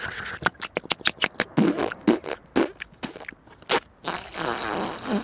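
Cartoon sound effects: a quick run of small clicks and taps, a few short low mumbles, then milk pouring from a carton into a mug near the end.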